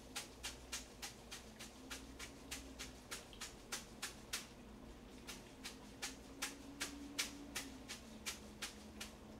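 Hand-operated garlic chopper mincing garlic: a run of sharp clicks, about three a second, uneven in loudness.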